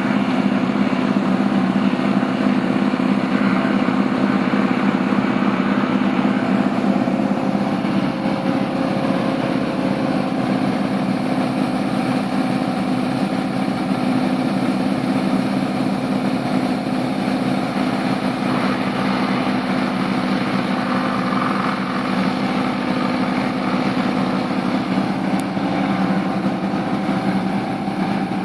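Engine-driven wood crusher running steadily with a constant engine hum.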